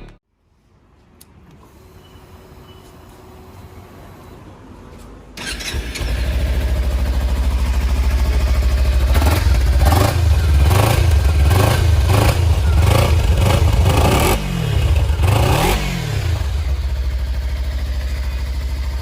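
Kawasaki Ninja 300's parallel-twin engine starting about five seconds in and settling to idle. From about nine seconds in it is revved in a run of quick throttle blips, each rising and falling in pitch, then drops back to a steady idle.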